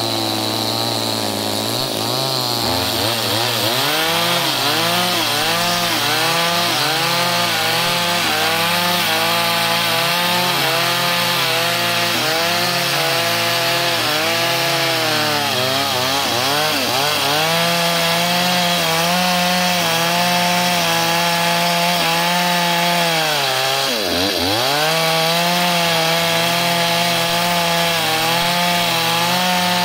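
Two-stroke gasoline chainsaw ripping lengthwise through very hard wood, the engine held at high revs under load. Its pitch wavers as the chain bites, sagging briefly a couple of times and most sharply about 24 seconds in before recovering.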